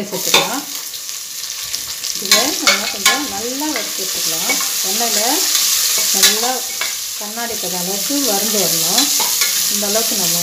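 Sliced onions hitting hot oil in a metal pressure cooker and sizzling loudly, stirred with a spatula that knocks and scrapes against the pot a few times.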